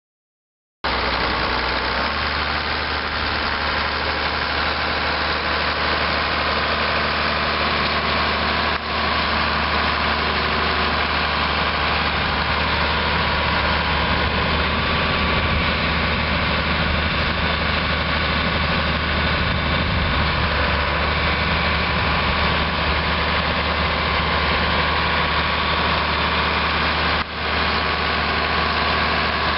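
A John Deere 4450 tractor's six-cylinder diesel engine running steadily. It starts less than a second in, and the sound breaks off very briefly twice, about 9 and 27 seconds in.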